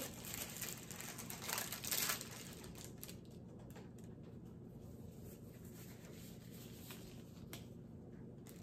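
Paper wrapper of a sterile glove pack being unfolded and crinkling for about the first two seconds. After that come quieter handling and a few faint clicks as the sterile gloves are picked up and pulled on.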